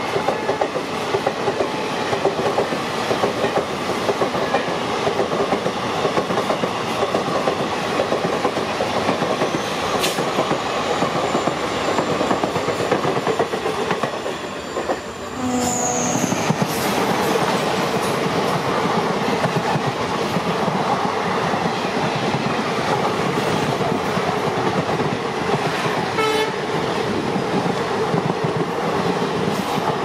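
Passenger train hauled by an EMD WDP-4 diesel locomotive, heard from on board: the steady rumble and clatter of the wheels on the track. The noise dips briefly about halfway through, then a short tone sounds.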